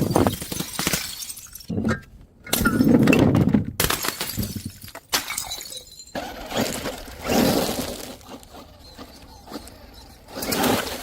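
Glass bottles smashing and shattering: several separate crashes with breaking glass, the loudest about a third of the way in.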